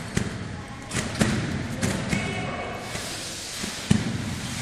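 Repeated thumps of feet landing on a trampoline bed, about one landing a second, in a large sports hall.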